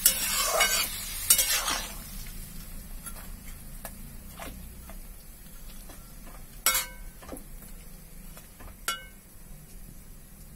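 Spiny gourd and potato curry sizzling in a hot metal pan as water meets the fried spices, loud for the first couple of seconds and then dying down. A metal spatula stirs through it, with a few sharp clinks against the pan, two of them ringing.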